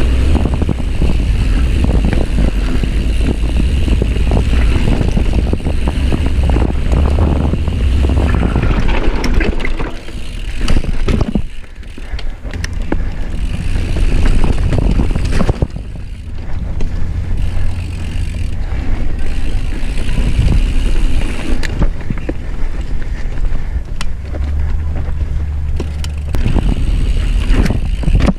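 Mountain bike ridden fast along dirt singletrack, heard from a chest-mounted camera: tyre noise and the rattle and clatter of the bike over a heavy wind rumble on the microphone. It eases briefly about 11 seconds in and again near 16 seconds.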